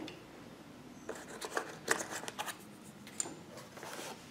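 Light clicks and taps from handling a plastic auto-darkening welding helmet as it is picked up and turned over, in a scattered run from about a second in.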